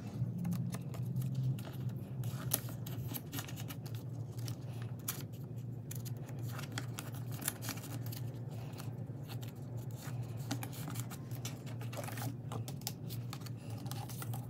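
Many small, irregular clicks, taps and crinkles of plastic photocard sleeves and binder pages being handled, over a steady low hum.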